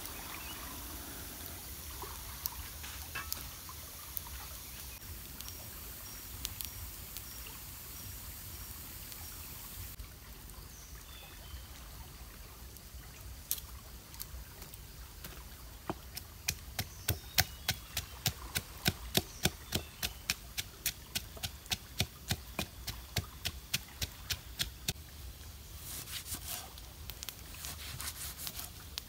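River water running steadily. About halfway through, a quick regular series of sharp taps joins it, about two or three a second for some ten seconds, then a few more near the end.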